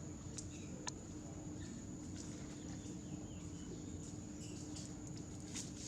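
Faint outdoor ambience: a steady high-pitched insect-like drone and a low hum, with scattered small clicks and a few brief, faint chirps.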